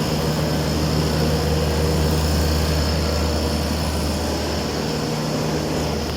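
Electric motor running steadily, with a strong low hum, a steady high whine and a hiss of air or water.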